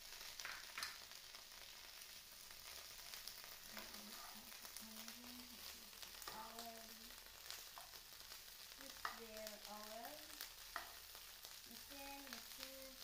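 Chopped vegetables sizzling quietly in a nonstick frying pan as they are stirred, with the spatula clicking against the pan a few times. A child hums a few notes now and then.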